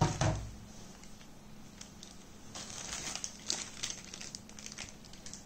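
A dull thump right at the start, then thin clear plastic packaging bag crinkling and rustling as it is handled, from about two and a half seconds in.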